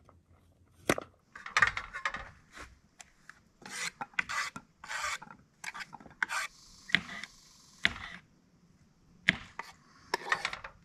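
A Leatherman multi-tool's knife blade slicing cremini mushrooms on a wooden cutting board: a run of irregular cuts, roughly one or two a second, each the blade going through the mushroom and onto the board.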